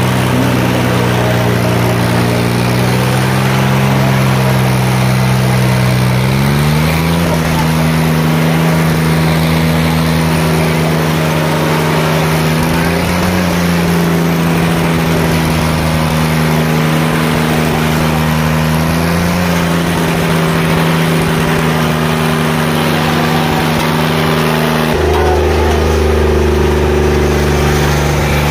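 Tractor diesel engine held at high revs under full throttle, putting out black exhaust smoke, a steady loud note that steps up in pitch about six seconds in and wavers briefly a few times.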